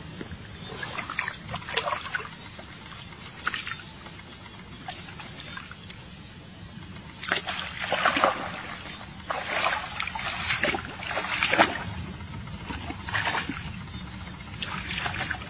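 Splashing and sloshing in shallow muddy water as hands scoop and grope about in it, in irregular bursts, busiest through the middle.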